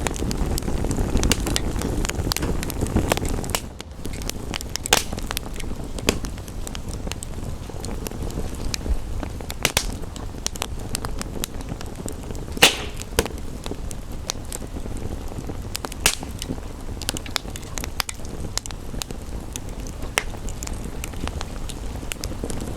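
Wood fire crackling, with scattered sharp pops and one louder pop about halfway through. Under it runs a steady rush of rain and wind, loud at first and dropping sharply to a softer hiss about four seconds in.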